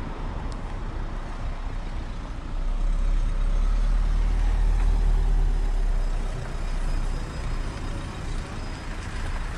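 Street traffic with a large vehicle passing close by: a low rumble swells about two and a half seconds in, peaks midway and fades again.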